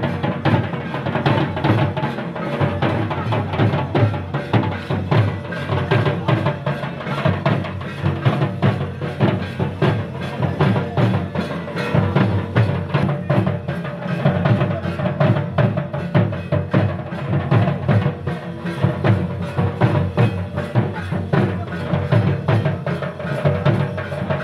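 Live folk drumming by a group of slung barrel drums, played in a fast, dense, continuous rhythm.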